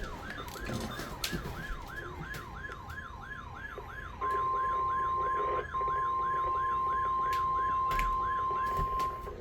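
Weather alert radio sounding an electronic siren alarm, a fast up-and-down sweep repeating about three times a second. About four seconds in, a loud steady 1050 Hz NOAA Weather Radio warning tone joins it, breaks off briefly and holds until near the end.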